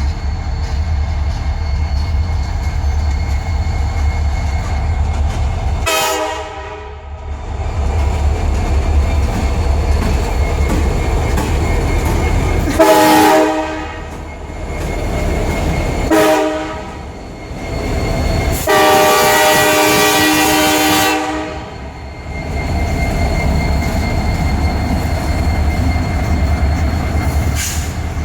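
Locomotive K5LA five-chime air horn sounding four blasts over the steady low rumble of diesel locomotives and a moving train. The third blast is short and the last is the longest, the long-long-short-long grade-crossing signal.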